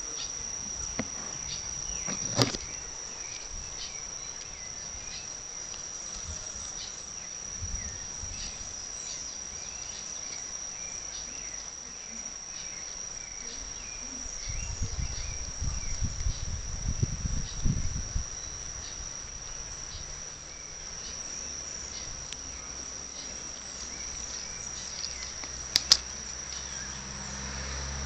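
Insects chirring in one steady, unbroken high-pitched tone. A couple of sharp clicks, about two seconds in and near the end, and a stretch of low rumbling bumps around the middle.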